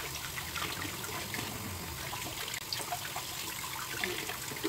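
Tap water running and splashing into a bowl of water in a sink as conch meat is rinsed by hand, a steady trickle with small scattered splashes.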